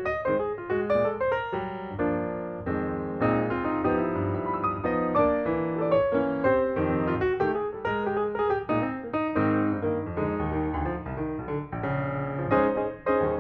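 Background music: piano playing a steady run of notes.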